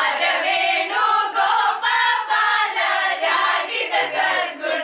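A group of women singing together, several voices at once.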